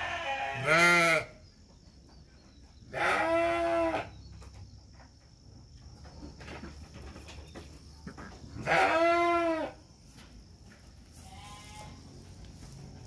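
Batur (Merino-type) sheep bleating, a ewe with her newborn twin lambs: a short bleat about half a second in, two louder bleats about a second each around three and nine seconds in, and a faint one near the end.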